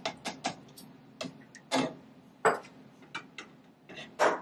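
A cooking utensil clacking and tapping against cookware during stirring: irregular sharp knocks, about ten in a few seconds, the loudest about two and a half seconds in and near the end.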